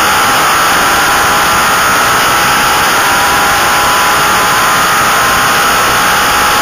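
Racing motorcycle engine held at high revs at full speed, heard from an onboard camera and buried in heavy wind rush; the pitch stays steady throughout.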